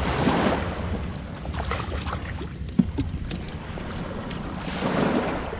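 Small waves washing onto a sandy beach, one surge at the start and another about five seconds in, over a steady wind rumble on the microphone. A few light clicks and one sharp knock a little under three seconds in.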